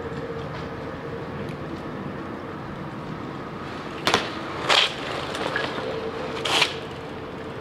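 BMX bike landing and rolling on stone paving: three short, sharp clattering impacts, about four seconds in, just under a second later, and again about six and a half seconds in, over a steady faint hum.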